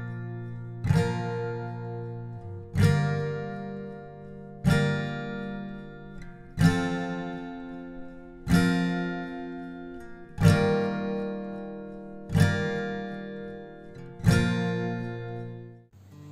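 Background music: acoustic guitar strumming one chord about every two seconds, each chord left to ring out. The music stops just before the end.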